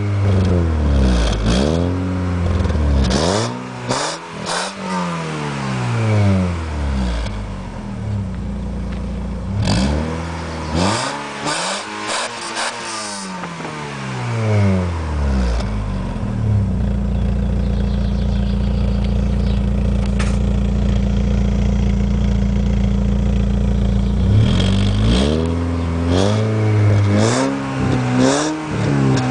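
Alfa Romeo 156 2.0 four-cylinder petrol engine revved through an Ulter Sport aftermarket rear silencer, heard close at the tailpipe: repeated throttle blips rising and falling in pitch, several seconds of steady running at constant revs in the middle, then more quick blips near the end.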